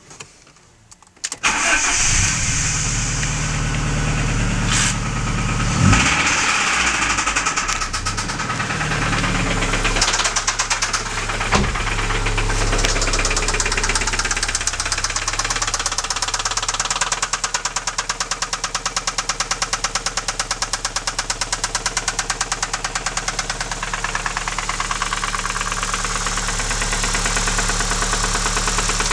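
Alfa Romeo 156 petrol engine starting after about a second of quiet, then running with a loud, rhythmic metallic knock, a ringing that came on suddenly at highway speed in fifth gear. The owner doubts it is the cam phaser.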